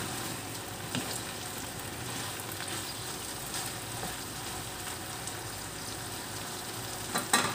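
Yardlong beans and ground pork sizzling in a frying pan while being stirred with a wooden spatula. There is a small click about a second in and a pair of sharp knocks near the end.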